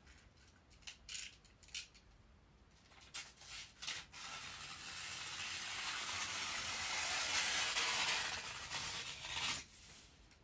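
Utility knife slicing through shoji paper in one long cut: a steady, scratchy scraping that builds in loudness for about five seconds and stops abruptly near the end. A few light clicks and taps of handling come before the cut.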